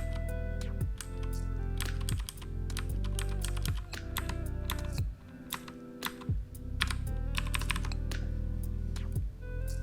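Typing on a mechanical keyboard with clicky Cherry MX Blue switches: quick, irregular keystroke clicks, denser in places, over background music with sustained low notes.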